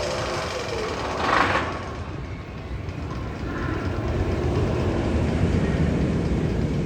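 Sound effect from the Magnum XL 200 roller coaster's tunnel: a continuous rumble, with a short loud hiss about a second in, then a low rumble building up toward the end.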